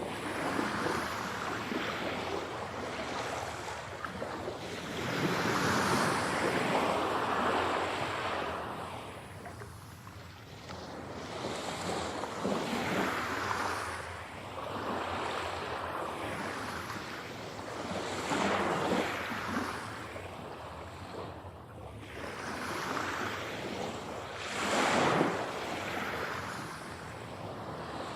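Ocean waves breaking and washing on a shore, swelling and ebbing every few seconds, with the biggest surge near the end.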